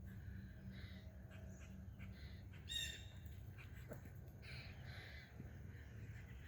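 One short, harsh animal call with a ringing, raspy tone about three seconds in, over faint, scattered calls.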